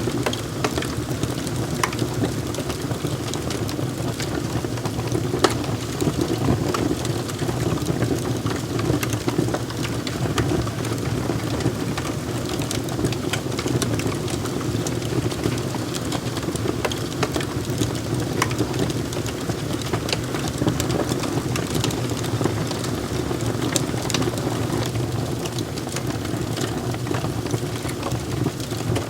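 Wood fire crackling, with frequent sharp pops and snaps over a steady low rumble of burning.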